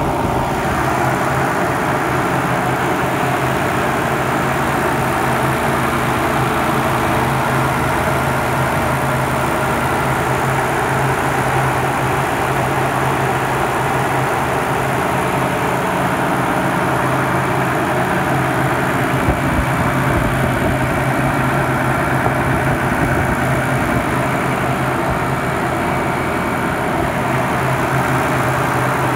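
Nissan 300ZX Twin Turbo's VG30DETT twin-turbo V6 idling steadily, heard close over the open engine bay.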